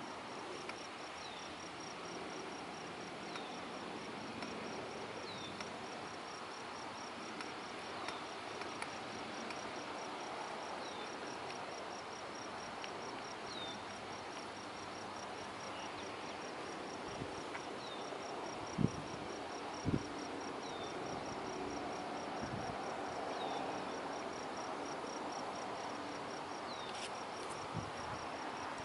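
Insects trilling steadily in a fast, even pulse, with a short falling chirp every couple of seconds. Two brief low thumps come about two-thirds of the way through.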